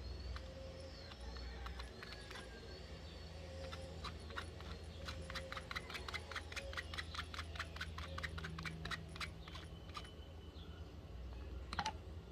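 A BlackBerry 8820 ringtone or alert tone playing through the phone's speaker: faint high chirps, then a quick run of clicks, several a second, for about five seconds, and a sharper double click near the end, over a low hum.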